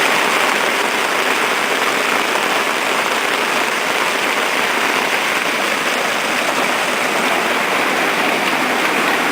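Steady rain falling, a dense, even hiss with no let-up.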